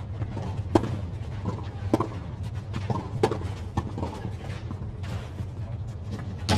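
Tennis balls struck by rackets during a doubles rally on clay: a string of sharp pops about a second apart, over a steady low hum.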